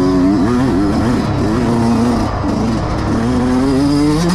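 Yamaha YZ125X two-stroke dirt bike engine under race riding, its pitch rising and falling over and over as the throttle is opened and chopped, with short breaks between pulls.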